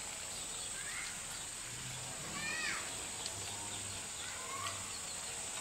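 Countryside ambience: a steady high-pitched insect buzz, with short rising-and-falling bird chirps every second or two.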